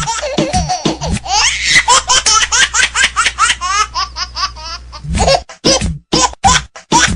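A comic ringtone of high-pitched, baby-like laughter in quick repeated bursts over a music backing. About five seconds in the laughs turn into stronger, evenly spaced pulses, about two or three a second.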